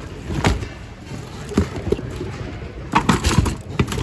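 Assorted secondhand goods being pushed and shifted around in a bin by hand: a string of knocks and clatters, with a busy cluster about three seconds in.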